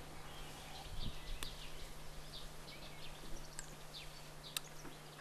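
Faint outdoor ambience of scattered bird chirps and calls over a steady low hum, with a couple of brief clicks.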